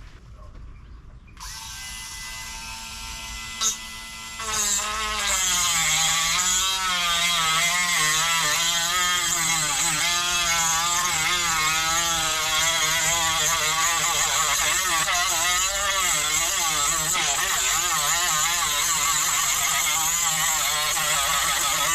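A high-speed rotary tool with a small abrasive cut-off wheel switches on about a second and a half in and spins up to a steady whine. From about four and a half seconds it bites into a stripped bolt, getting louder and dropping in pitch, its whine wavering as the load changes during the cut.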